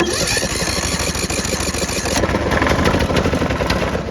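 Riding lawnmower engine cranking and firing, a loud, rapid rough run that starts abruptly and falls away at the end.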